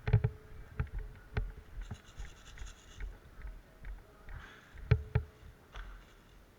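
Irregular sharp knocks and clicks with scraping and rustling between them, the loudest a pair about five seconds in.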